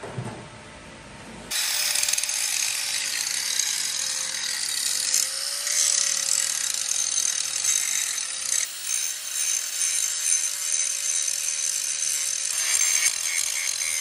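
Electric grinder biting into a steel truck frame rail, a steady, loud high-pitched grinding hiss over the motor's whine that sets in about a second and a half in. The welded-up frame cracks are being ground down flush so a reinforcement plate can sit on them.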